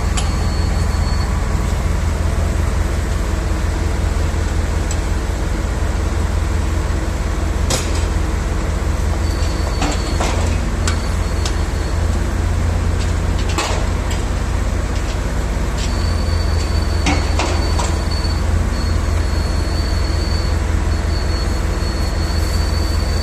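Heavy construction truck's diesel engine running steadily with a deep drone, with a few sharp knocks now and then and a high whine that comes and goes.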